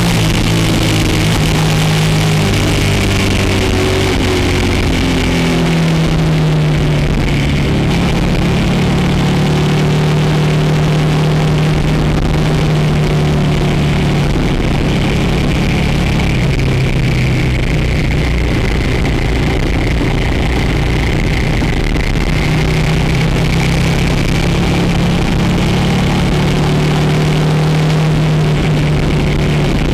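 Motorcycle engine running on the move. Its note steps down a few times in the first few seconds, then holds fairly steady, rising and falling a little.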